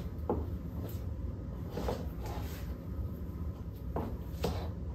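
A handful of soft footfalls and shifting steps on a hardwood floor, over a steady low hum.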